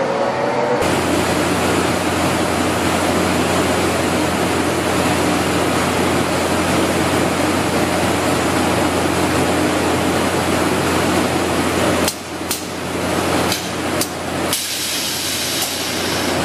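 Automatic industrial woodworking machine running, with a steady mechanical noise over a low hum as wood blanks are fed into its milling head. About twelve seconds in, the noise drops back for a couple of seconds, with a few sharp clicks, then comes up again.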